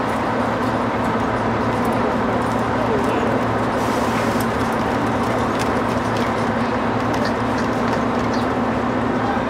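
Street ambience carried by a steady low engine hum, like an idling vehicle, with a few faint clicks near the middle.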